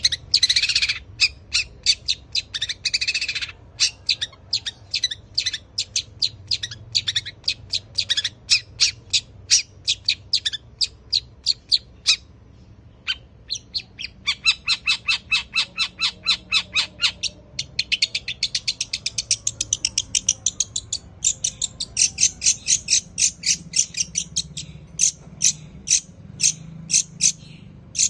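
Long-tailed shrike singing a long chattering string of short, sharp, high notes, several a second, breaking into faster runs now and then. Its song mixes in Eurasian tree sparrow calls.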